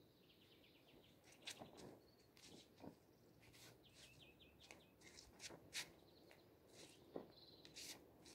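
Faint birdsong with two short trilled phrases. Through it comes a scattering of faint sharp snaps and scuffs from a taekwondo form being performed: the uniform snapping with each technique and feet scuffing on the road.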